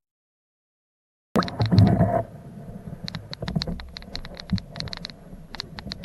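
Underwater river sound picked up by a submerged camera: a low rumble with rapid, irregular clicks and ticks, and a faint steady high whine. It starts abruptly about a second in, after silence.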